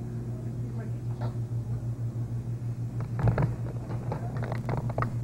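A steady low hum with faint background voices, broken by a few brief clicks and knocks, the loudest about three seconds in.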